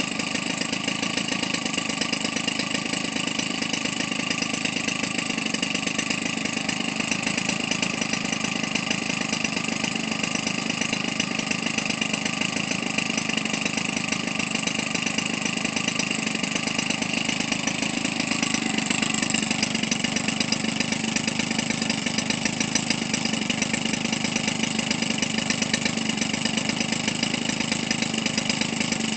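Converted Weedeater Featherlite 25cc two-stroke trimmer engine with a gutted muffler, running steadily and smoothly on a test bench while turning a propeller. It gets slightly louder about two-thirds of the way through.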